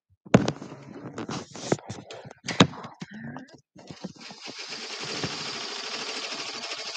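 A few sharp knocks and clattering handling sounds, then from about four seconds in a multi-needle embroidery machine stitching with a rapid, even rhythm.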